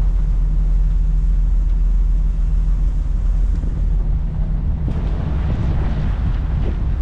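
Steady low engine rumble with wind on the microphone; about five seconds in, a rushing hiss swells for a couple of seconds.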